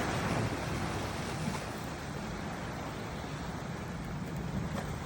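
Steady wash of surf with wind rumbling on the microphone.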